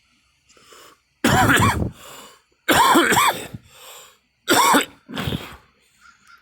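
A person coughing three times, about a second and a half apart, each loud cough followed by a quieter rasp.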